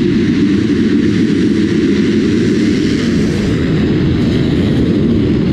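A pack of motocross dirt bikes racing together just after a race start, many engines running hard at once in a loud, steady blend.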